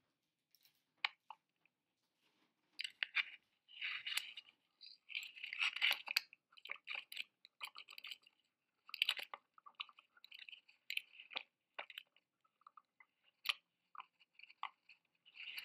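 Irregular crackling and scraping from a high-altitude balloon payload jostling near the top of its flight, in air so thin that nothing else is heard.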